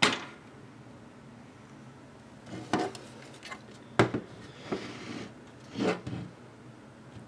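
Plastic-cased electricity meters being handled on a desk: a sharp knock at the start, then a few scattered knocks and short scrapes of the plastic globe against hands and desk, the sharpest knock about four seconds in.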